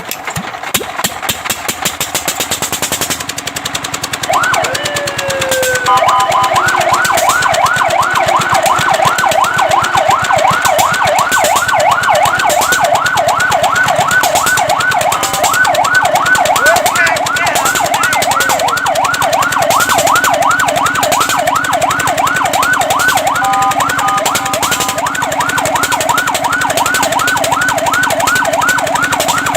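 Fire truck siren over a running motor's rapid rattle. About four seconds in it gives one slow rise and fall. From about six seconds it switches to a fast yelp of about three rising-falling sweeps a second, which breaks briefly near the end.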